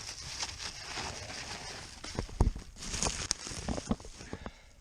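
Handling noise: rustling with several short knocks and clicks, clustered about two to four seconds in.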